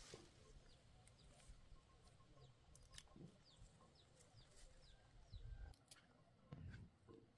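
Chickens clucking faintly, with many short, high, falling chirps and a few soft clicks.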